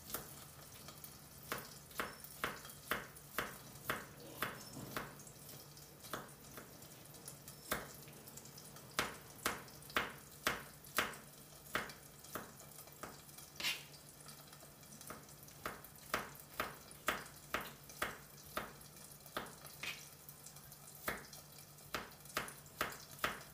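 Kitchen knife chopping on a plastic cutting board: sharp, irregular taps, often in quick runs of several, with a steady low hum underneath.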